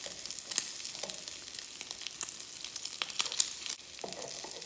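Bacon sizzling in a hot frying pan: a steady hiss with frequent sharp crackles and pops of spitting fat.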